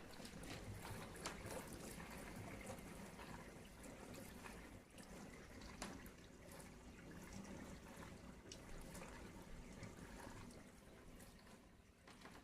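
Water splashing and trickling inside a Miele G 4100 dishwasher running its Eco cycle, faint, with scattered small clicks. It starts abruptly and dies down near the end.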